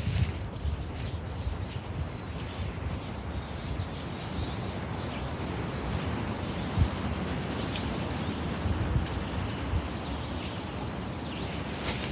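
Strong wind blowing across the microphone, with small birds chirping faintly in the background. A single brief knock about seven seconds in.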